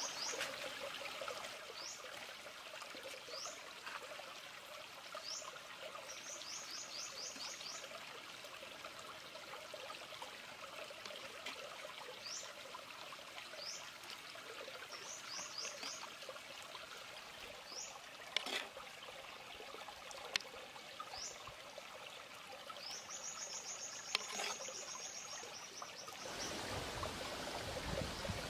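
Small stream running and trickling steadily, with a bird calling in short rising chirps, some in quick runs, and a longer trill a little before the end. A few sharp clicks sound past the middle.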